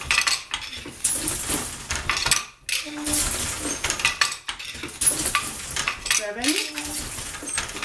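Wooden floor loom being worked in plain weave: repeated knocks and clatter from the beater and shuttle in a steady working rhythm, with a short squeak about six seconds in.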